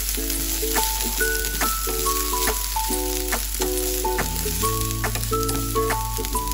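Chopped garlic sizzling in hot oil in a nonstick frying pan as it is stirred, a steady frying hiss. A light melodic music track with a regular beat plays over it.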